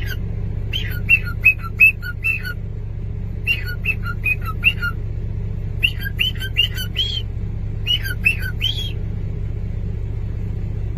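High-pitched animal chirps come in four quick bursts of four to six short falling notes each, over a steady low rumble.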